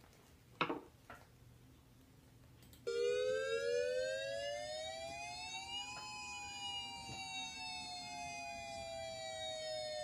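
Siren wail: a pair of close tones starts abruptly about three seconds in, rises evenly for about three seconds, then falls slowly. A short knock comes in the first second.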